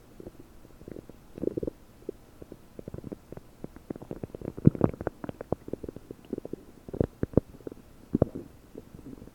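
Human stomach and intestines gurgling, picked up close by a desktop microphone: a run of quick pops and bubbly gurgles, busiest about halfway through, with a few louder pops later. The gut is bloated and bubbly, working through about 30 prunes.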